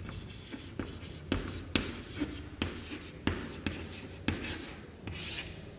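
Chalk writing on a chalkboard: a run of sharp taps and short scratching strokes as a word is written, with a longer high scratch near the end.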